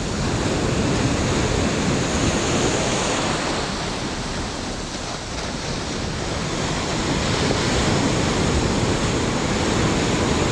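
Surf breaking and washing up over a sandy beach at the water's edge. The wash eases off about halfway through as the water drains back, then builds again as the next wave breaks near the end.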